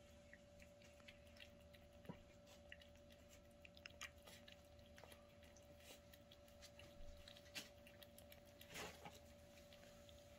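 Domestic cat eating wet cat food from a stainless steel bowl: faint, irregular smacking and clicking of its chewing and licking, a little louder near the end, over a faint steady hum.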